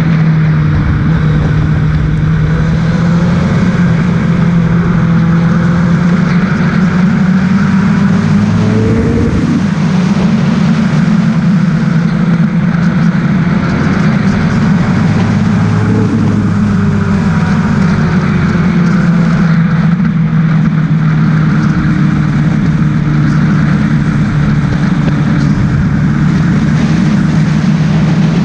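Single-seater race car's engine running hard, heard on board at speed, its note rising and falling as the car accelerates and lifts through the corners, with wind rushing over the car.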